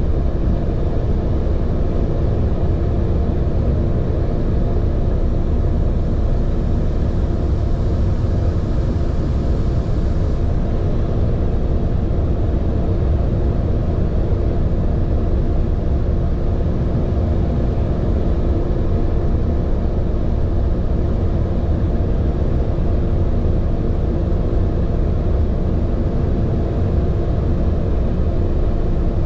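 Car ferry's diesel engines droning steadily under way, a continuous low rumble carrying through the deck.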